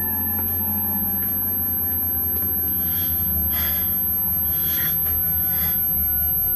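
Steady low droning hum, with a few short breathy puffs about halfway through.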